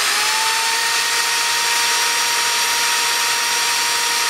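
DeWalt electric drill running steadily at speed: a high motor whine over bright hiss with a lot of energy in the upper frequencies. Its pitch sags slightly at the start, then holds.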